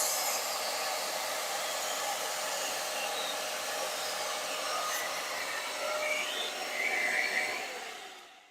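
Hoover CleanSlate XL spot cleaner's suction motor running steadily as it sucks cleaning liquid off a hard floor through its silicone attachment, then dying away near the end as it is switched off.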